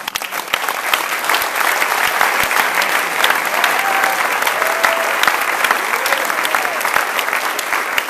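Audience clapping in applause, breaking out suddenly and holding steady as dense, continuous clapping from many hands.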